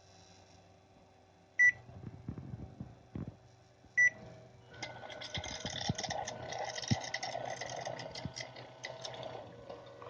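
Panasonic electric bidet toilet seat beeping twice, then a few seconds of rattling, hissing mechanical noise as the unit runs. The seat has a fault where its lights flash and it does not spray water.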